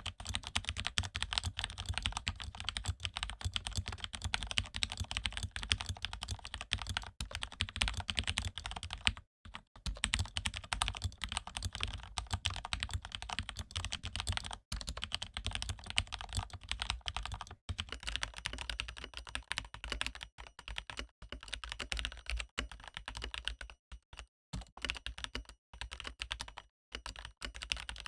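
Fast, continuous typing on a Corsair mechanical keyboard with lubed Cherry MX Red linear switches: dense key clicks and clacks, broken by a few brief pauses.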